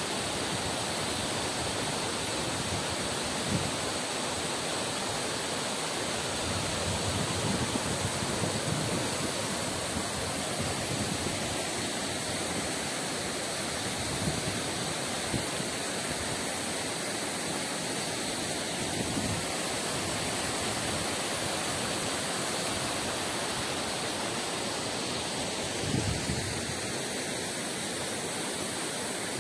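Steady rush of water from a waterfall and a rocky stream, with a couple of brief low bumps.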